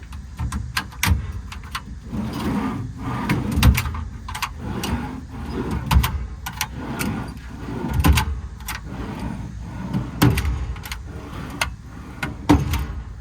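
Metal service-body drawers and compartment doors being handled, a string of irregular clicks, knocks and dull thumps as they are shut and latched.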